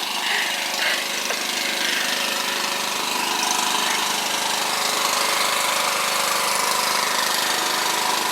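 Generator engine running steadily.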